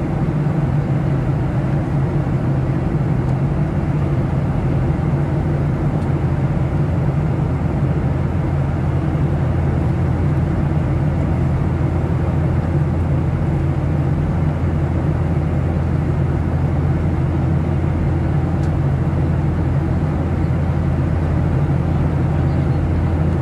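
Steady low drone inside the cabin of a Boeing 737-700 in flight, from its CFM56-7B turbofan engines and the air rushing past the fuselage.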